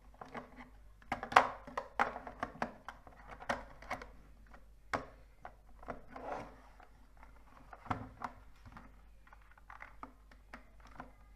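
Irregular plastic clicks and scraping as a SIM card is pushed and worked into the SIM slot of a Huawei F501 GSM landline phone, the sharpest click about one and a half seconds in.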